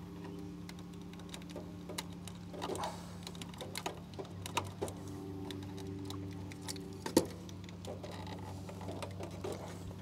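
Small scattered clicks and light rattling of wires and a metal spade connector being handled and fitted onto a contactor terminal, with one sharper click a little after seven seconds. A low steady hum runs underneath.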